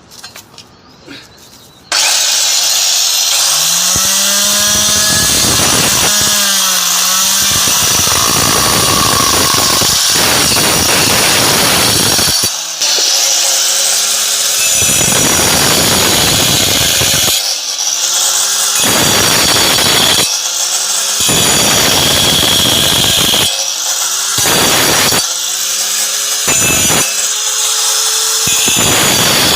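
Handheld marble cutter starting about two seconds in and cutting into a floor with a loud, harsh grinding noise. The motor's whine rises again and again as it spins back up between cuts.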